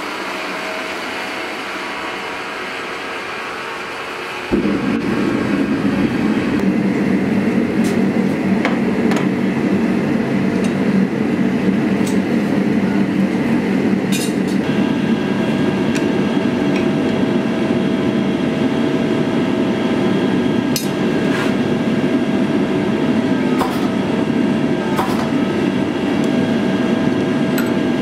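Gas forge burner running with a steady rushing noise. About four and a half seconds in it suddenly becomes louder and deeper, and a few light clicks sound here and there.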